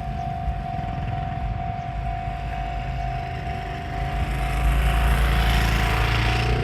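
Level-crossing warning bell ringing a steady repeating tone while an Enoshima Electric Railway train (1000 and 2000 series coupled) approaches. About four seconds in, the rumble and rush of its wheels and motors swell and become the loudest sound as it passes.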